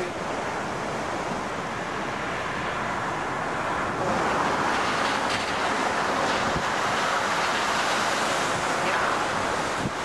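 Sea surf surging and foaming through a rocky channel among kelp, with wind buffeting the microphone. The rush of water grows louder about four seconds in.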